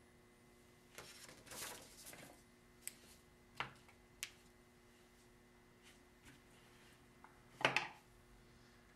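Hands working small pieces of plasticine clay onto a wire armature: a soft rustle, then a few light ticks and a short cluster of clicks near the end, over a faint steady hum.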